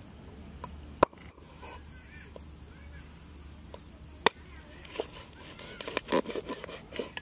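Meat cleaver chopping raw chicken feet on a wooden chopping board. Two sharp single chops about three seconds apart, then a quick run of lighter knocks near the end.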